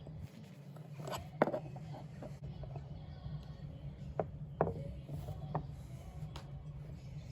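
Several sharp knocks and clicks of metal parts being handled, scattered irregularly over a steady low hum.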